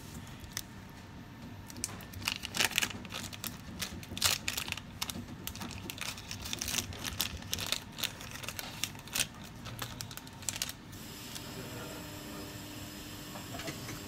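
Small clear plastic parts bag crinkling and rustling in the hands, a run of quick irregular crackles. A steady faint hum with several thin tones starts about eleven seconds in.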